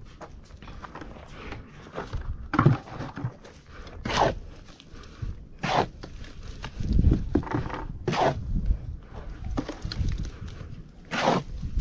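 Steel shovel scraping and slapping through wet sand-and-cement mortar on a mixing board as it is turned over, about six separate strokes a second or more apart, the last the loudest.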